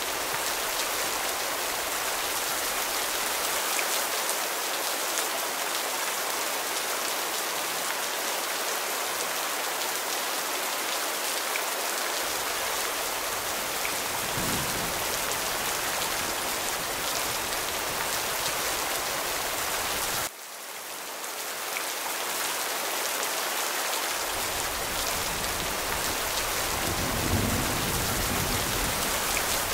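Steady heavy rain falling, an even hiss of drops. About two-thirds through it drops away suddenly and swells back over a couple of seconds, and low thunder rumbles through the last few seconds.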